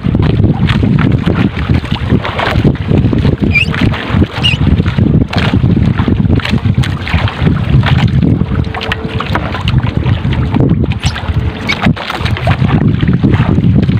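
Outrigger boat at sea: a steady low rumble of water and wind against the hull and microphone. Scattered light clicks and rustles come from the nylon net being pulled in over the side.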